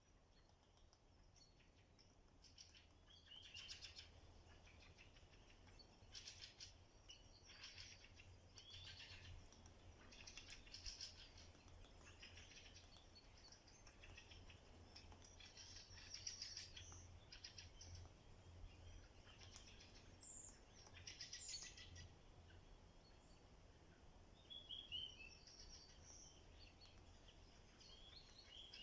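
Faint songs of several forest songbirds: rapid high trills and chirps repeating every second or two, over a faint low steady hum.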